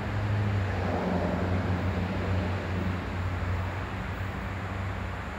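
Diesel freight locomotives' low, steady engine drone with a rushing noise over it, swelling a little just after the start and easing slightly in the second half.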